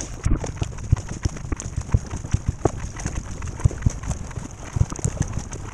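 Paddling a racing surfski: irregular sharp knocks and splashes from the paddle strokes and water slapping the hull, a few a second, over a steady hiss of water, picked up through the deck-mounted camera.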